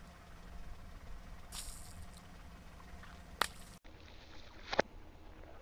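Water dripping and small splashes in a shallow puddle as water balloons are handled, with two sharp clicks, one about three and a half seconds in and another about a second later.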